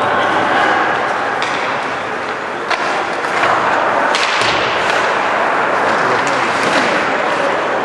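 Ice hockey play: skates scraping across the ice in a steady rush, broken by a few sharp clacks of sticks and puck.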